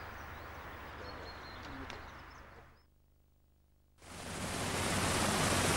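Faint outdoor ambience with a few faint bird calls, fading out to silence a little under halfway through. After about a second of silence, a steady rushing noise fades in and grows louder.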